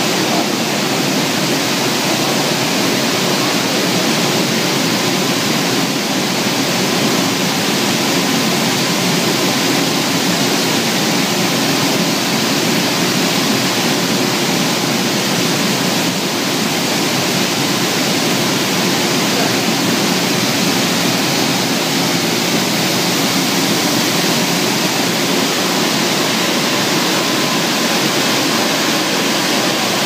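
Stainless-steel bubble washing machine for dates running: a steady rush of air-churned water and nozzle spray, with a faint steady whine beneath.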